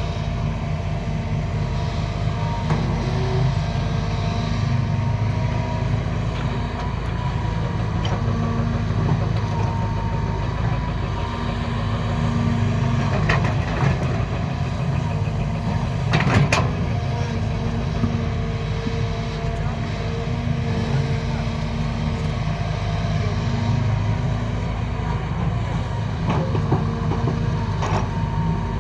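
Heavy diesel engine of construction machinery running steadily under varying load, with a sharp metallic knock about two-thirds of the way through.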